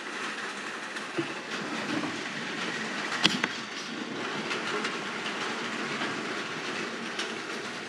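Steady background hiss with a few light clicks and knocks of handling, the sharpest about three seconds in, as the camera is moved and the small steel gear attachment is picked up by its tumbler knob.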